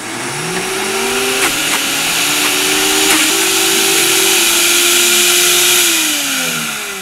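Two high-power blenders, a Vitamix Turboblend VS and an Omega BL630, running together on high with a thick load of coconut pulp and meat. Their motors rise in pitch in the first second, hold a steady whine, then wind down over the last second. With too little liquid the blades are cavitating, spinning in an air pocket without drawing the mixture down to them.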